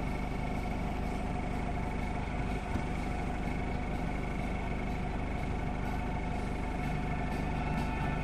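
A steady engine-like hum with several held tones, unchanging in level.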